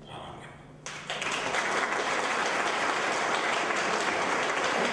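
Audience applauding, starting abruptly about a second in and holding steady.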